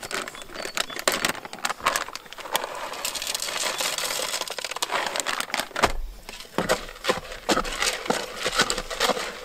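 Small 4 mm and 6 mm Robin Red fishing pellets sprinkled into a bait mix. A dense rattle of many small clicks thins out to scattered clicks about halfway through.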